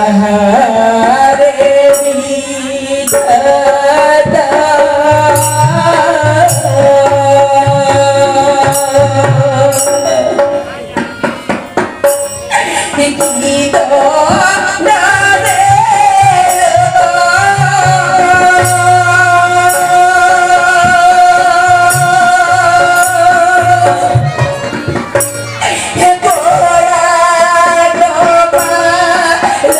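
Odia folk-theatre song: a voice singing long, wavering held notes through a microphone over steady hand-drum strokes and small cymbals.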